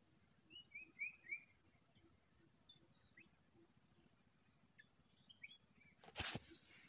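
Faint birds chirping in forest: a quick run of three or four short chirps about a second in, then scattered single chirps, over a faint steady high tone. Near the end a short, loud burst of noise cuts in.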